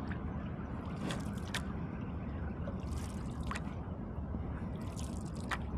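Water trickling and lapping along the hull of a moving kayak, with a brief splashy patter about every two seconds over a steady low rumble.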